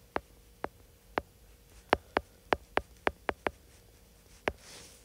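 Stylus tip clicking on an iPad's glass screen while handwriting a word: about a dozen sharp, irregular clicks, bunched closely in the middle, with a brief soft hiss near the end.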